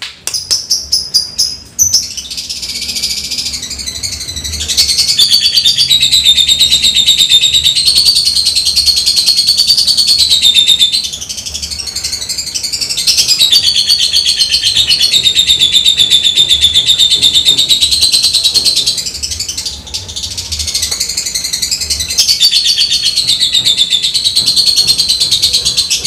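Caged lovebird singing in full voice: a few quick separate chirps at first, then a long, rapidly pulsing high chatter that runs on with only brief lulls, the long trill that bird keepers call 'ekek panjang'.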